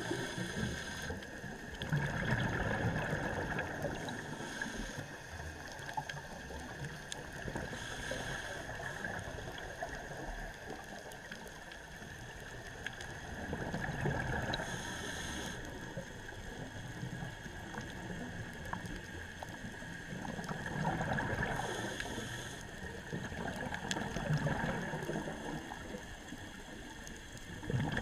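Scuba diver breathing through a regulator underwater: slow, regular breaths with a rush of exhaled bubbles about every six to seven seconds, over a steady underwater background.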